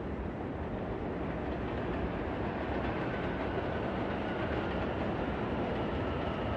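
New York City night ambience: a steady, dense low rumble of city noise that grows slightly louder, with faint high whining tones coming in about halfway.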